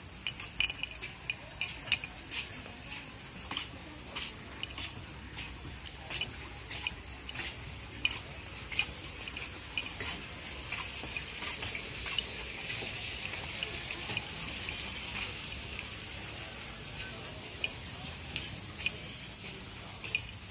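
Footsteps of several people in shoes walking on a wooden plank boardwalk: irregular knocks and taps on the boards, roughly two a second, with a steady hiss that grows louder in the middle.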